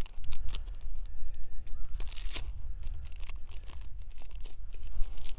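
Thin clear plastic wrapping being cut and torn open with a knife tip, crinkling and tearing in short irregular crackles, with a louder tear about two seconds in.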